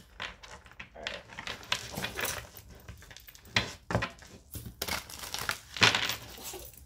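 A deck of tarot cards being shuffled by hand: cards sliding and flicking against each other in an irregular rustle, with a few louder sharp clicks, the loudest a little past halfway and about a second before the end.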